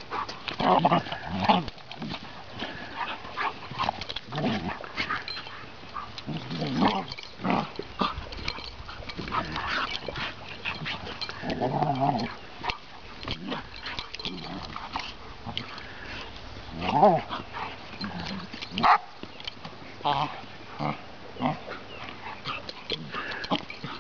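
Chocolate Labrador puppy play-growling in short, irregular bursts while wrestling a larger dog, the loudest bursts about two-thirds of the way through.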